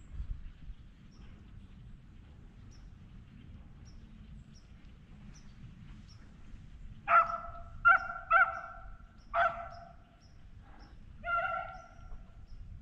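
Beagle barking: a quick run of five short, loud barks starting about seven seconds in, the voice of a hound trailing a rabbit.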